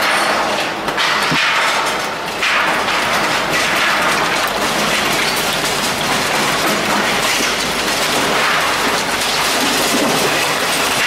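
Steady, dense crackling and clattering of concrete silo demolition, with broken concrete and rubble breaking and falling.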